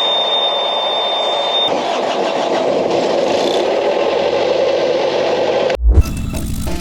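Semi truck running, a steady engine and road rumble, with a high steady beep over the first couple of seconds. Near the end it breaks off with a loud low thump as music begins.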